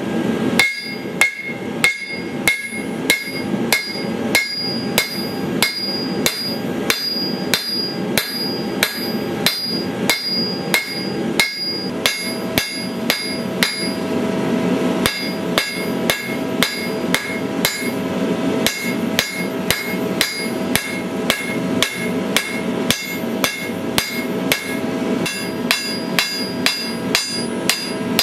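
Hand hammer striking hot steel on an anvil in a steady rhythm of about two blows a second, each blow ringing with a high metallic tone. The hammering pauses briefly about halfway through.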